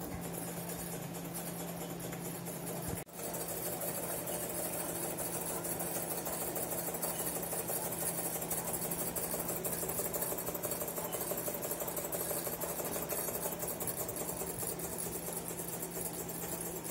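Jensen 75 toy live steam engine running steadily, a fast even clatter of its piston and flywheel as it drives a small pie-pan carousel through a belt made of hair ties and staples, over a steady low hum. The sound dips briefly about three seconds in.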